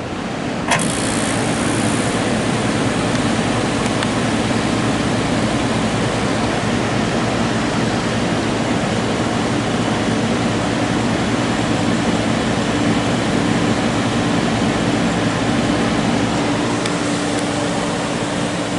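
1976 Fedders 11,000 BTU window air conditioner starting its compressor: a sharp click under a second in, then compressor and fan running steadily with a low hum.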